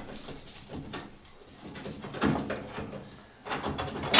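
Hand tools working metal on a rusty car body: scattered clinks and scrapes, with a louder scrape right at the end.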